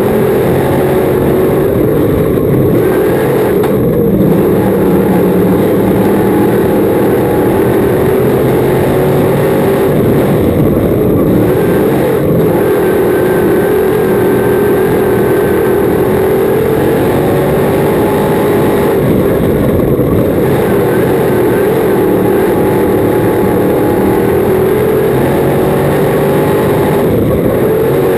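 Crate V8 engine of a dirt-track modified race car at racing speed, heard from inside the cockpit: a loud, continuous engine note whose pitch swells and sags every several seconds as the car goes around the track.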